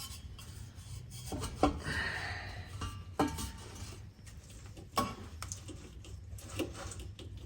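Metal exhaust pipe being handled and shifted against a muffler while it is fitted: scraping and about four sharp metallic clanks, over a low steady hum.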